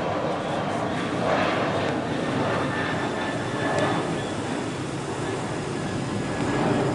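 Jet engines of a Boeing 737 climbing out after take-off: a loud, steady roar.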